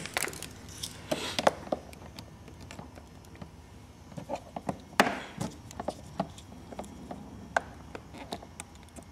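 Scattered light clicks and knocks from handling battery-tender leads at the terminals of a scooter's 12 V battery. The loudest knock comes about five seconds in.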